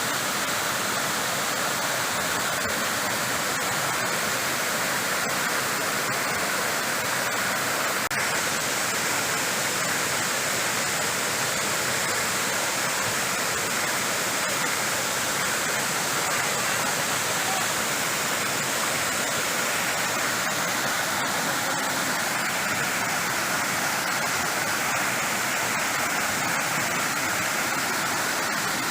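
Waterfall crashing steadily: a constant rush of falling water with no breaks.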